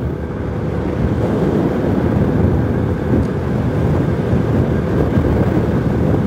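Strong wind rushing over the microphone of a motorcycle riding at speed, a steady low rumble of wind and road noise.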